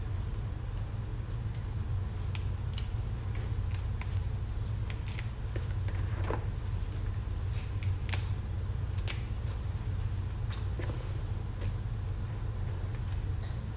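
Jute mallow (saluyot) leaves being plucked off their stems by hand and dropped into a plastic colander: soft snaps and leafy rustles at irregular intervals. A steady low hum runs underneath and is the loudest sound.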